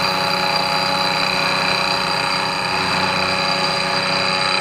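Vertical milling machine's end mill taking a 1/8-inch roughing cut in an aluminum steering damper bracket, the table fed by hand-cranking both hand wheels. A steady cutting sound with several constant tones from the running spindle.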